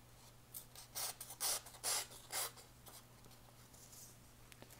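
A sheet of paper sliced with the freshly sharpened clip blade of a German-made Böker Copperhead pocketknife: a quick run of five or six short slicing strokes starting about half a second in, a paper-cutting test of the edge.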